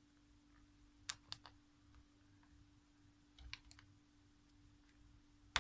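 Small sharp clicks of a magnetic charging cable's tiny plug and a phone being handled as the plug is fitted into the phone's port one-handed: three clicks about a second in, a few more around three and a half seconds, and one near the end.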